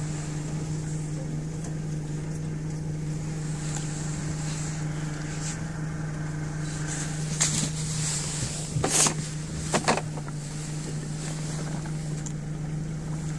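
90-horsepower outboard motor running steadily at cruising speed, a constant low drone from the moving boat. A few short louder rushes of noise come through past the middle.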